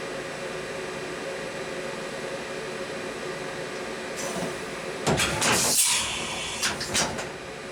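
Takisawa MAC-410V vertical machining center standing idle after its spindle has stopped, a steady hum with several fixed tones. About five seconds in come several loud clunks and a sliding scrape, then two more knocks.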